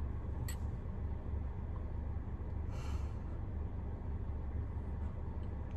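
Steady low rumble inside a car, with a small click about half a second in and a short sniff about three seconds in.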